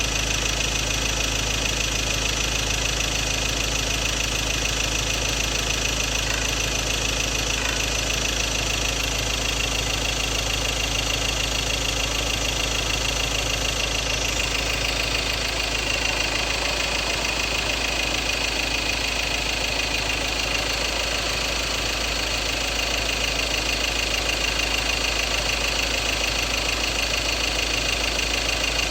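Ford Ranger 2.2 Duratorq four-cylinder turbo-diesel running steadily with a knocking rattle, which the owner takes for fuel knock, possibly from an injector problem.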